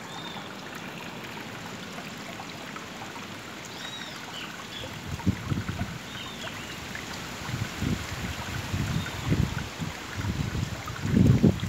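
Steady trickle of flowing water with a few short high chirps. From about five seconds in, irregular low rumbling bursts join it and grow louder toward the end.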